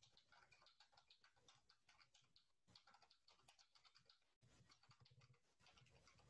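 Very faint typing on a computer keyboard, a steady run of light key clicks as numbers are keyed in, just above near silence.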